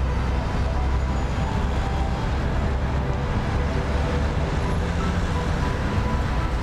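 Steady low rumble of city road traffic, a continuous wash of passing vehicles with no single event standing out.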